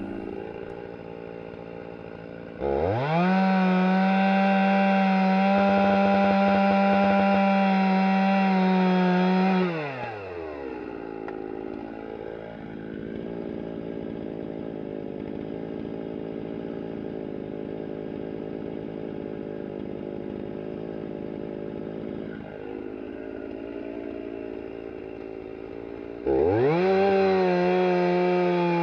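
Stihl two-stroke chainsaw idling, then revved to full throttle for about seven seconds while cutting a fallen log, before dropping back to a steady idle. Near the end it revs up again and bites into the log, its pitch sagging slightly under the load of the cut.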